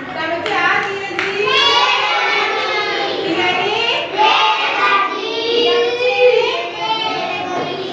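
A child singing in a high voice, carrying on without a break.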